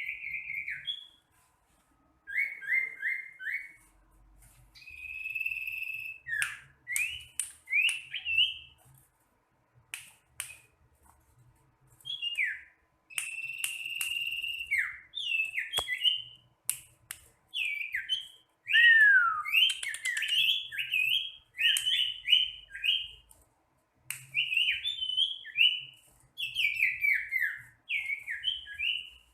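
Sirtu bird singing: bursts of short, high whistled notes and quick downward-slurred phrases, repeated with brief pauses between bursts.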